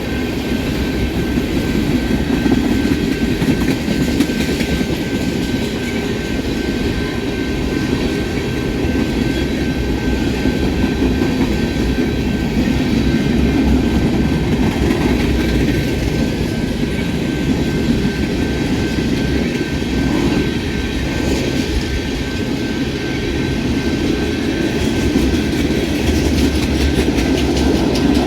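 A train rolling past steadily, its wheels running on the rails, with a constant noise and no pauses.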